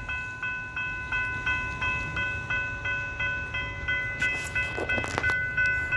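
Railroad grade-crossing warning bell ringing rapidly, about three dings a second. Under it is the low rumble of an approaching train.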